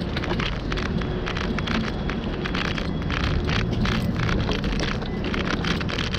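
Rain falling and hitting the microphone: irregular sharp taps of drops over a steady low rumble.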